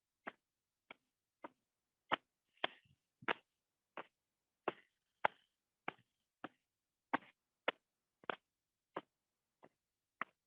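Hands patting and tapping along the legs in a circulation self-massage exercise: a steady run of light, short pats, roughly three every two seconds, some louder than others.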